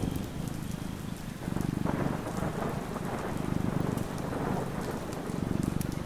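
Steady rain with scattered drop ticks, under a low thunderstorm rumble that swells and fades several times.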